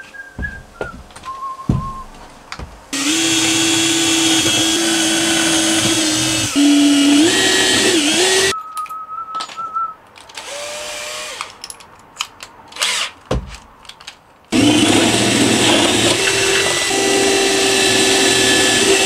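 Cordless drill running in two long bursts, drilling holes into thin aluminium sheet. The first burst starts about three seconds in and stops around eight seconds, its motor pitch dipping and wavering as the bit bites. The second starts about fourteen and a half seconds in.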